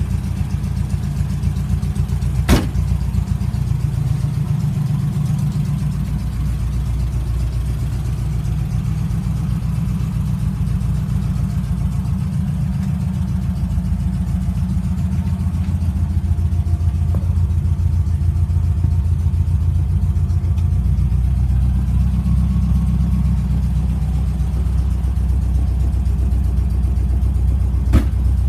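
Volkswagen Baja Bug's air-cooled flat-four engine idling with a steady low rumble. A sharp click or knock sounds about two and a half seconds in and again near the end.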